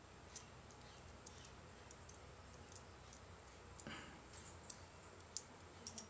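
Near silence with faint, scattered small clicks, about six of them: the metal parts of a Zippo lighter being handled and taken apart by hand.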